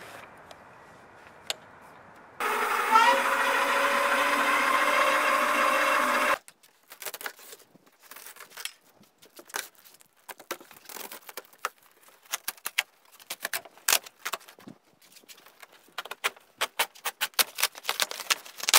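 A loud edited-in musical sting of about four seconds that starts and stops abruptly. It is followed by the crackling, scraping and tapping of a large cardboard bike shipping box being opened by hand, with its flaps pulled back, and the sounds get busier near the end.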